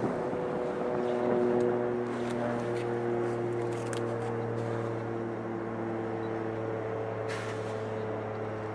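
Diesel freight locomotives running, a steady low engine drone with several humming tones above it that come and go, and a few faint clanks.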